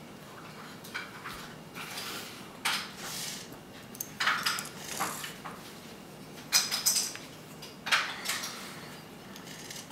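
Small plastic Lego pieces being handled and pressed together: scattered clicks and short clatters, the loudest a quick cluster near the middle.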